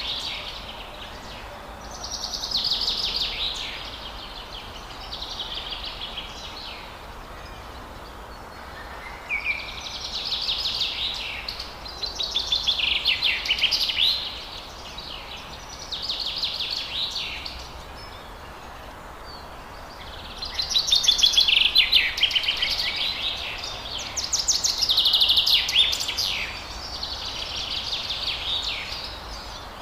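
Forest songbirds singing: a run of song phrases, each a fast trill of notes lasting one to three seconds and repeated every few seconds, over a steady faint background hiss.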